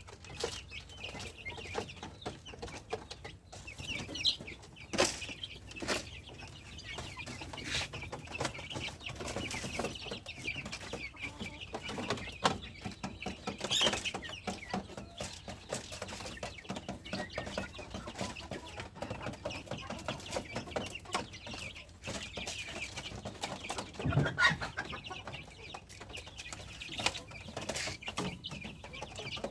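Chickens clucking on and off, with many short clicks and knocks in between.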